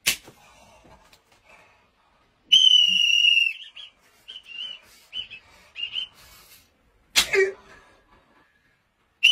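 A rubber band snaps sharply at the start. About two and a half seconds in comes a loud, steady, high whistle lasting about a second, then several short high whistle-like chirps, and another sharp snap about seven seconds in.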